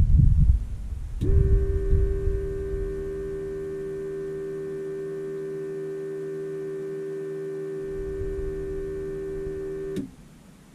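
Low thumps of handling noise, then a click about a second in and a steady electrical hum from the Dynamic WT9's switched-on cockpit systems, which cuts off with another click near the end.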